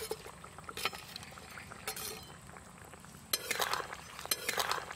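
Metal spatula clinking and scraping as fried hilsa pieces are slid off a clay plate into a wok of simmering curry. A few separate clinks come first, then after about three seconds two louder spells of scraping and liquid sloshing in the wok.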